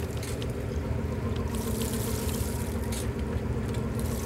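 Steady drone of the boat's engine running at idle, with water sloshing and trickling against the hull.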